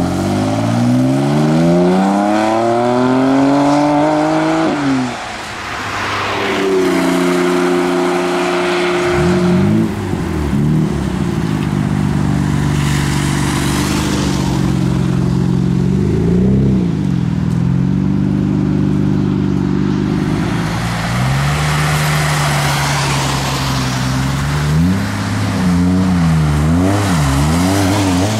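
Performance cars leaving one after another on a wet road. A BMW M4 Convertible accelerates away, its engine note rising steadily for about five seconds. Then a white Nissan Skyline R33 GT-R and other cars run steadily and rev as they pull out, and near the end a Skyline revs with quick up-and-down throttle blips as it slides out.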